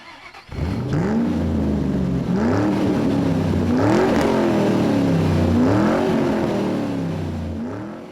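An engine revving up and down about five times, its pitch climbing and sliding back each time, then fading near the end.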